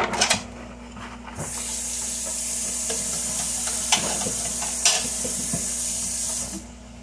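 A steady hiss lasting about five seconds that starts and stops abruptly, with a few sharp clicks, the loudest one just after the start.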